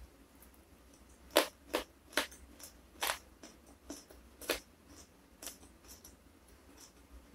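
Close-miked chewing of a mouthful of fried fish with sambal matah: a run of sharp, crisp crunches at an uneven pace, fewer after about five and a half seconds.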